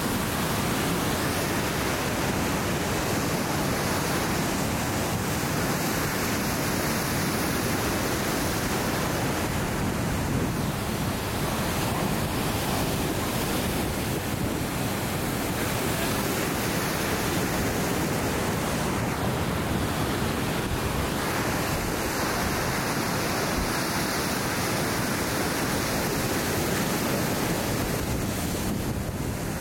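Heavy storm surf breaking and splashing against a concrete breakwall, with wind. A steady, unbroken rush of water.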